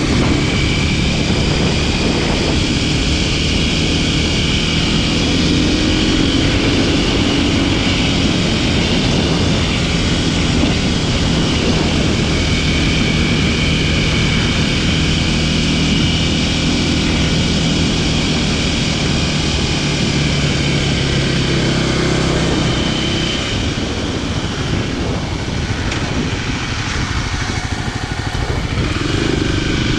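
Kawasaki KLX300SM supermoto's single-cylinder four-stroke engine running at a steady cruise. About two-thirds of the way through, the throttle eases off and the engine note drops, then picks up again near the end.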